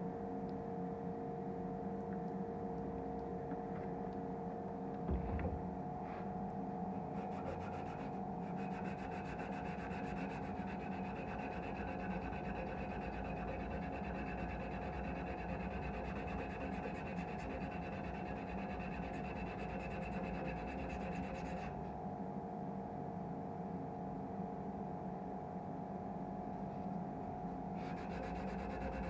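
Electric sander running steadily with a constant motor hum, its abrasive rubbing against the cleaver's steel blade; a brighter, hissier scraping comes in from about a quarter of the way through, drops back for a while and returns near the end.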